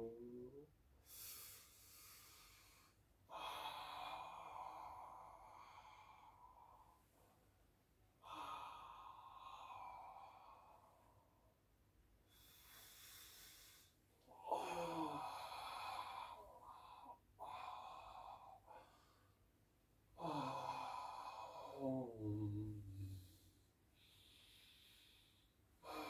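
A man breathing slowly and audibly, about four deep breaths: hissing inhales and long exhales, the exhales in the second half voiced as sighs that fall in pitch.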